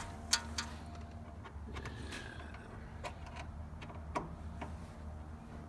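A few scattered light clicks and taps as car interior trim pieces are worked loose by hand, over a steady low hum.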